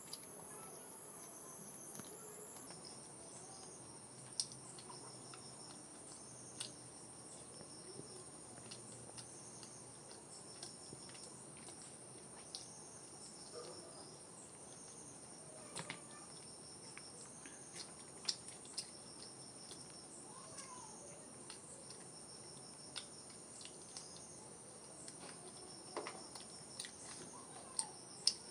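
Crickets trilling steadily in the background, with scattered short clicks and smacks of someone eating, chewing luchi and pork.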